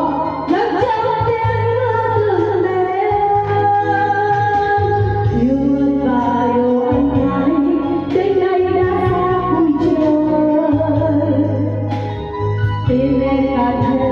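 A Vietnamese ballad with a woman singing long, held melodic lines over steady instrumental backing.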